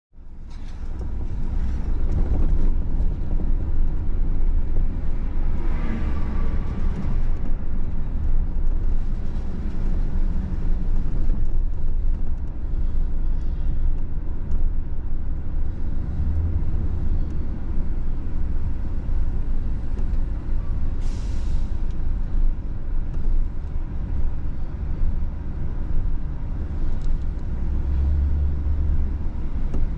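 Steady low rumble of road traffic and wind on the microphone, with a short sharp hiss about 21 seconds in.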